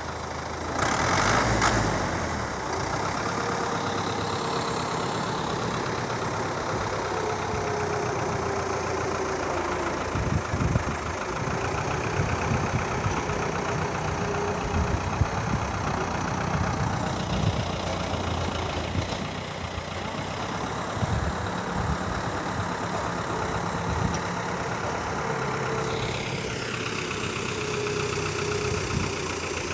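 New Holland farm tractor's diesel engine running under load as it pushes loose soil with its blade, with a louder surge about a second in and a few light knocks later on.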